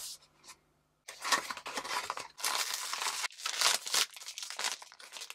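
Silver foil blind-box bag crinkling and tearing as it is pulled from its small cardboard box and opened: a run of dense rustles that starts about a second in.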